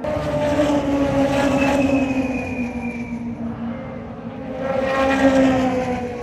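Super Formula single-seaters' turbocharged 2.0-litre four-cylinder engines as the cars pass one after another through the bends. Each engine note falls in pitch as it goes by. The loudest passes come about a second in and again about five seconds in.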